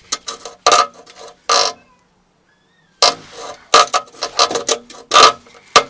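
Rusted muffler being wrenched back and forth on the exhaust pipe by hand: repeated metallic clanks and scrapes of the corroded joint, broken by about a second of silence midway, then a quick run of bangs.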